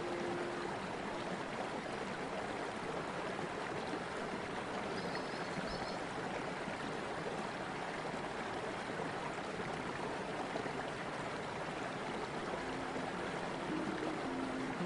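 River in spate after a storm: muddy floodwater rushing through rapids, a steady full roar of white water.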